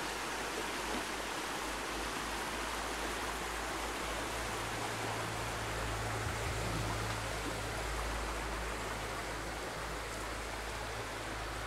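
Stream water running steadily, an even rushing wash.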